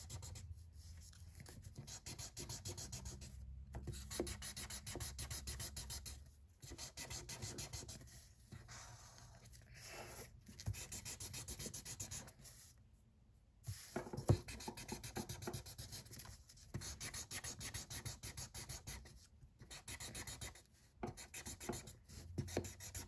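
A broad felt-tip marker scribbling rapidly back and forth on paper while colouring in an area, in spells of quick strokes broken by short pauses.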